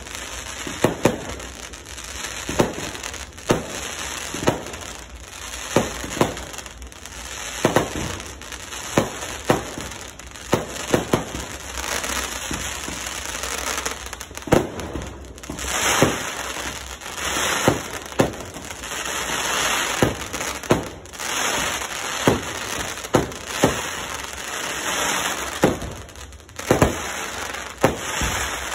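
Consumer aerial fireworks going off: a string of sharp bangs, roughly one or two a second, and from about halfway in a dense crackling as gold glitter bursts pop in the air, the crackling dying away near the end.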